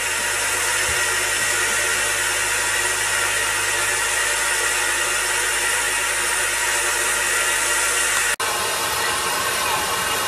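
Steam hissing steadily from a narrow-gauge Garratt steam locomotive standing at a station. About eight seconds in, the sound cuts off abruptly and gives way to a rougher background noise.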